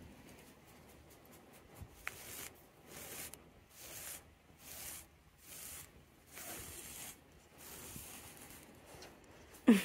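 Uproot Cleaner pet-hair remover's fine-toothed metal blade raked across a quilted cotton bedspread in repeated short strokes, each a brief scratchy rasp as it drags dog hair out of the fabric. A brief louder sound cuts in right at the end.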